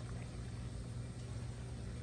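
Low steady background hum, with no pouring or other event.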